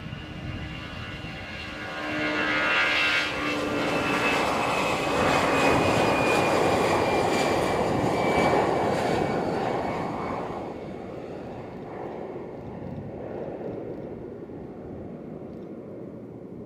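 Airbus A319 airliner's jet engines at takeoff power during the takeoff roll and lift-off. The roar swells over the first few seconds, with a high whine that slowly falls in pitch as the aircraft passes, then fades from about ten seconds in as it climbs away.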